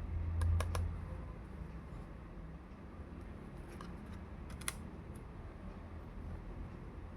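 Light plastic clicks and taps from small toy pieces being handled: a quick cluster of three about half a second in, and two more near the middle, over a low steady hum.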